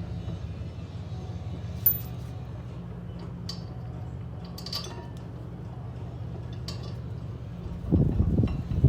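Metal tools and parts clinking now and then during brake and hub reassembly, over a steady low hum, with a louder bout of knocking and handling noise near the end.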